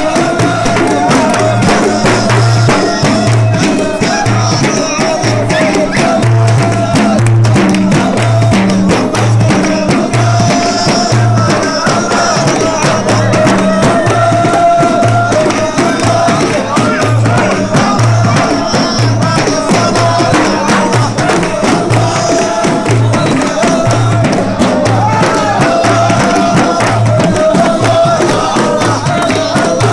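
Sufi hadrah music: large frame drums beating a steady, deep rhythm while a group of men chants together in a held, wavering line.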